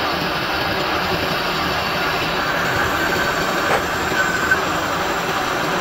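Metal lathe turning the bore of a steel gear blank, the cutting tool grinding steadily against the spinning steel. A few sharp ticks and a short high squeal come about four seconds in.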